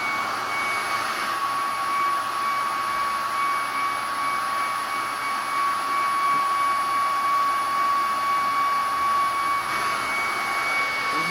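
Hoover Commercial CH91600 40-volt cordless upright vacuum with a brushless motor running steadily: a constant high whine over rushing air.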